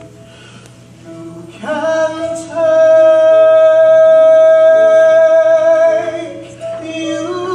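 Musical-theatre solo singing: after a quiet first second or so, a voice comes in and holds one long note with vibrato for about three seconds, with other pitched parts beneath it.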